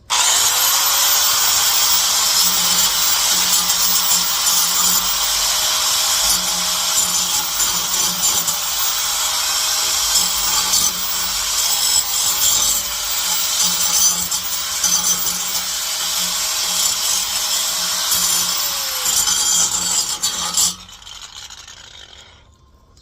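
Electric power tool scouring the end of a truck's exhaust pipe to clean it: a harsh rasp over a steady motor whine that spins up at the start and winds down near the end, before stopping.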